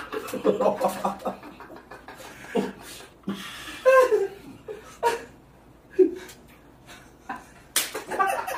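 Men laughing in short bursts and chuckles, with a couple of sharp clicks near the end.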